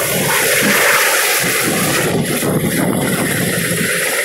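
Sikorsky S-70i Black Hawk's twin turboshaft engines and main rotor at lift-off power as the helicopter rises off the pad and climbs overhead. The noise is loud and steady, with a rapid beat from the rotor blades.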